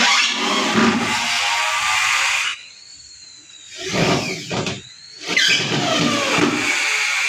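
Corded electric drill driving screws into a laminated particle-board cabinet top, its motor whining and sliding up and down in pitch as it speeds up and bogs under load. It stops for about a second around three seconds in, then runs again in two bursts.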